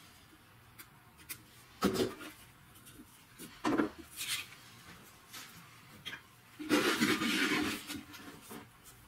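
Pencil scratching as it traces letters through a template onto a slate slab, in a few short strokes, then a louder stretch of rubbing and handling about two-thirds of the way through as the template comes off the slate and a gloved hand passes over the surface.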